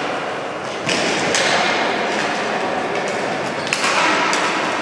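Ball hockey play echoing in an indoor hall: several sharp clacks of sticks and the ball, over a steady background hubbub.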